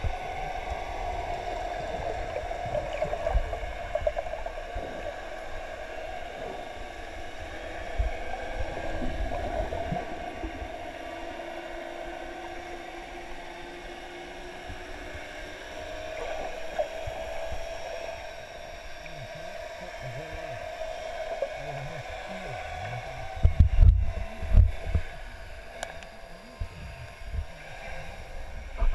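Underwater sound heard through a GoPro Hero 3's waterproof housing: a steady muffled hiss with a faint wavering hum. In the last few seconds come heavy low thumps and swishes of water against the housing as the camera moves up toward the surface.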